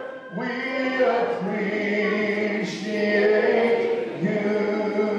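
Church congregation singing a slow worship chorus, with long held notes that move from pitch to pitch.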